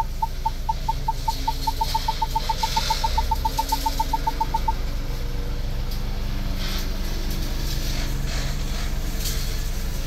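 Ford Bronco's reverse parking-sensor chime: a single-pitch beep repeating about four times a second and quickening to about eight a second as the vehicle backs toward an obstacle, stopping about five seconds in. Under it, the engine runs with a steady low hum.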